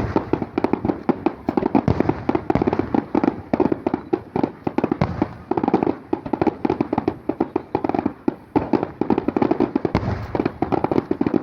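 Aerial fireworks going off in a dense, rapid barrage of bangs and crackles, many per second, that cuts off suddenly near the end.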